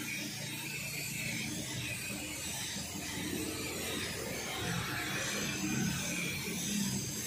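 Gravity-feed paint spray gun hissing steadily as it sprays clear coat, with a low uneven rumble underneath.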